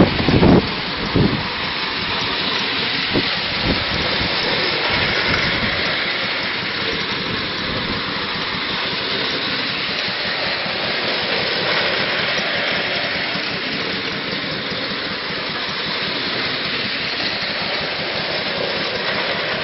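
Clockwork tinplate O gauge trains running on tinplate track: a steady whirring rattle of the wound spring motors and wheels on the tin rails. A few low knocks in the first four seconds.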